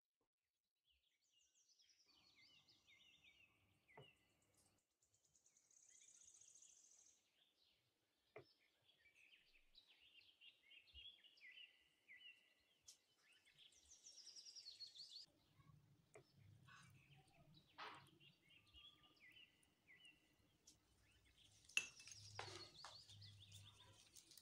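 Faint chirping like small birds in the background, with a few short clicks of a fork against a ceramic plate, the loudest near the end.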